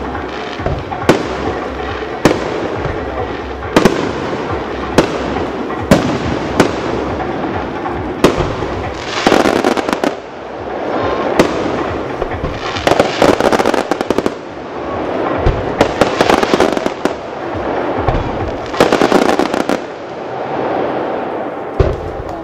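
Fireworks going off: a string of sharp single bangs about once a second, then several bouts of dense rapid crackling a few seconds apart.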